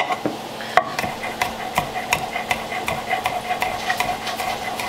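Kitchen knife chopping green onions on a wooden end-grain cutting board: a quick run of knocks, about four a second.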